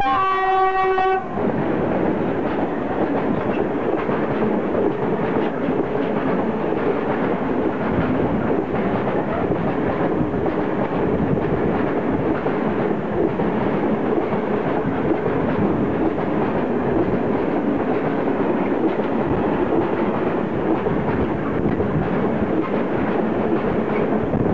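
PKP ST43 diesel-electric locomotive sounding one short horn blast of about a second, followed by the steady rumble and clatter of a long train of open freight wagons rolling past on the rails.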